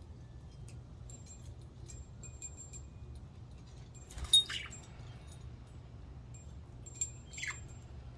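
Budgies chirping: scattered faint high chirps, one loud sharp call about four seconds in, and a quick call falling in pitch near the end.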